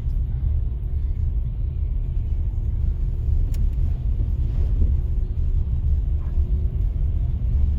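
Steady low rumble of a car's engine and road noise heard inside the cabin, with a single brief click about three and a half seconds in.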